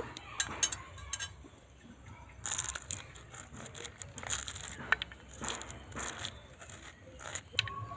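Seeds being scraped out of a halved raw green papaya: irregular soft, crunchy scraping, with a few light clicks of seeds dropping into a steel bowl early on.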